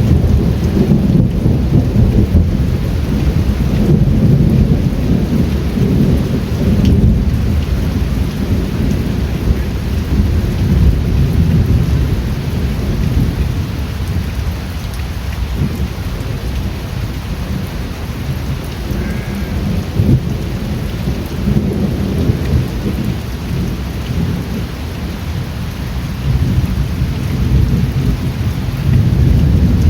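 Steady heavy rain with a deep, rolling rumble of thunder that swells and eases throughout, strongest at the start and again near the end.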